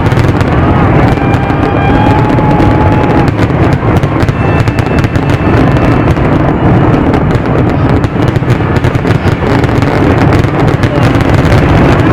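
Aerial fireworks barrage going off in rapid succession: a continuous loud roar of crackles and bangs, with a few thin whistles in the first half.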